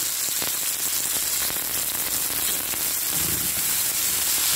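Sliced onions, ginger, garlic, lemon wedges and red pepper strips sizzling steadily in hot oil in a frying pan as they sauté, stirred with a wooden spatula near the end.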